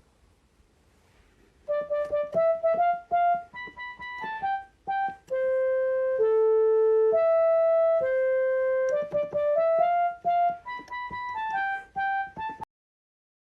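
A simple melody picked out on a piano-like keyboard, one note at a time, some short and some held. It starts about two seconds in, repeats its opening run of rising notes near the end, and cuts off abruptly.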